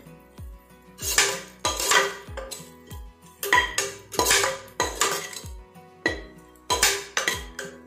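A spatula scraping and knocking against the inside of a pressure cooker pot as onion filling is stir-fried, in repeated strokes. Background music with a steady beat plays underneath.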